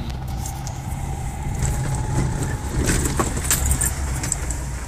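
Four-wheel drive on a dirt track: steady low engine and tyre rumble, with loose things in the vehicle rattling and clicking, most busily about three seconds in.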